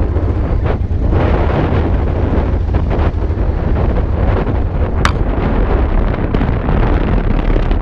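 Honda Transalp's V-twin engine running at low speed, with heavy rumble and wind buffeting on the microphone. A single sharp click comes about five seconds in.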